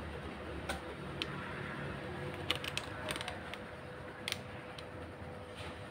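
Electric stand fan running steadily with a low hum, its motor shaft shimmed with an added washer to stop the blade shaft sliding back and forth and rattling. A few sharp clicks, several close together near the middle.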